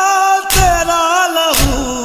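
Urdu noha lament sung in long, wavering held notes by male reciters, over heavy rhythmic thumps of matam (chest-beating) about once a second.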